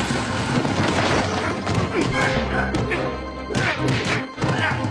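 Fight scene from an animated cartoon: music over a string of crashes, whacks and thuds as things smash during the brawl.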